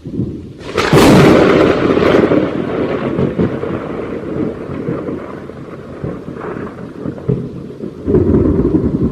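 Thunderclap: a sharp crack of lightning about a second in, a second crack soon after, then a long rolling rumble that dies down and swells again near the end.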